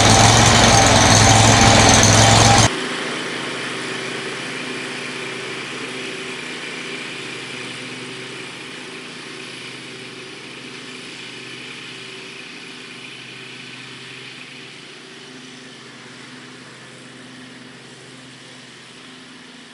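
Predator 670 V-twin engine running on an Exmark mower. It is loud and steady for the first few seconds, then cuts suddenly to a quieter engine sound that fades away gradually.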